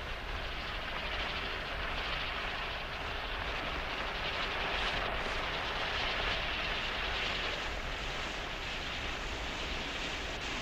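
Steady hissing of a gas cutting torch flame burning through steel plate.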